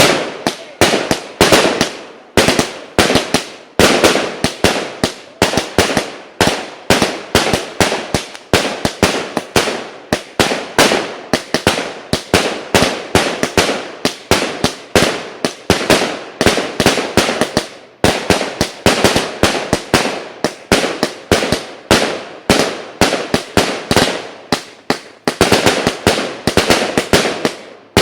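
A 100-shot firework battery (cake) firing its shots in quick succession: a steady string of sharp loud bangs, several a second, each with a short crackling tail.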